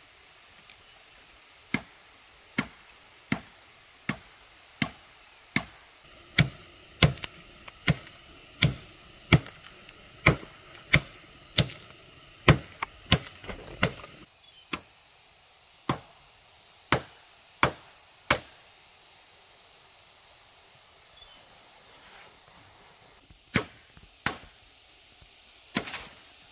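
Repeated sharp chopping blows, about one every 0.7 seconds for some twenty strokes, then a pause and a few more strokes near the end. A steady high buzz of crickets or other insects runs underneath.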